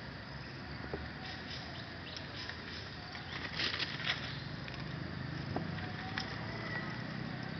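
Steady background hum of insects, with a quick cluster of sharp crackles about halfway through and a few single clicks after.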